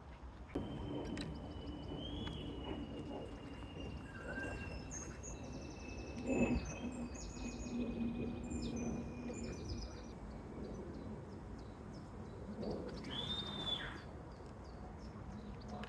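Outdoor background noise with birds chirping. A faint high steady tone slowly falls in pitch over the first ten seconds, and there is a single knock about six and a half seconds in.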